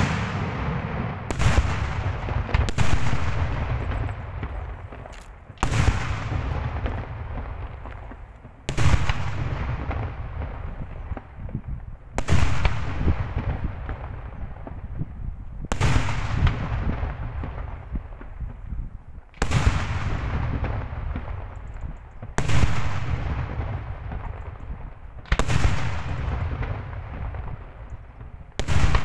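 Daytime fireworks: aerial shells bursting one after another, about eleven loud single bangs every few seconds, each followed by a long rolling echo.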